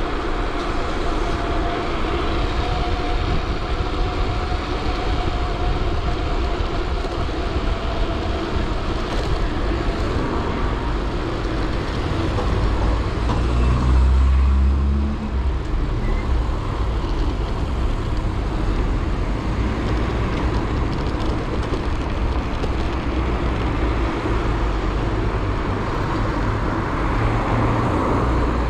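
Road traffic passing along a city street, heard from a moving bicycle, with a steady low rumble throughout. One vehicle passes close and loud about halfway through.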